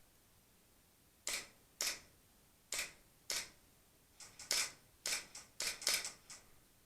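Airsoft guns firing: about a dozen sharp cracks. Four come as spaced single shots, then a quicker, irregular string follows.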